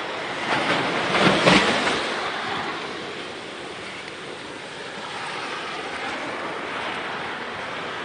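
Ocean surf breaking and washing up a sandy beach, a steady rushing wash that swells loudest a second or so in.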